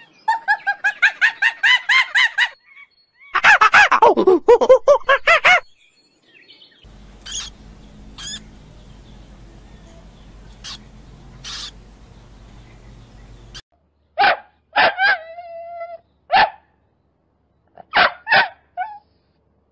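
A monkey's rapid chattering calls, then a louder run of calls falling in pitch. A quiet stretch of low hum with a few faint clicks follows, and near the end a puppy gives several short yips and barks.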